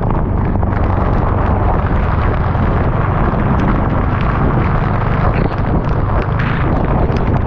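Motorcycle engine running steadily on the move, buried under heavy wind buffeting on the rider's microphone.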